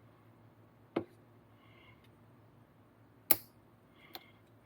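Three short, sharp clicks from small tools and plastic kit parts being handled during RC model assembly, the loudest about three seconds in.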